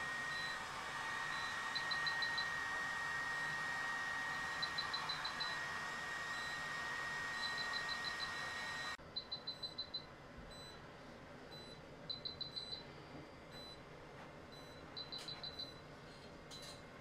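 Class 4 therapy laser beeping while it emits: repeated bursts of about five quick high beeps, a little under three seconds apart, with a single beep between bursts. A steady machine hiss runs under the beeps and drops away about halfway through.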